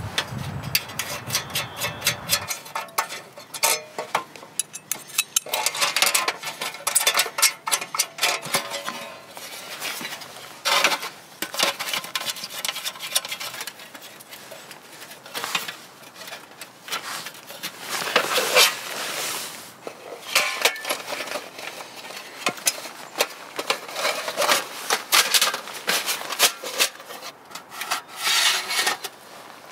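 Pomoly T-Brick Altay titanium wood stove being assembled by hand: thin metal plates and fittings clinking, scraping and rattling against each other in irregular bursts as they are slid and slotted into place.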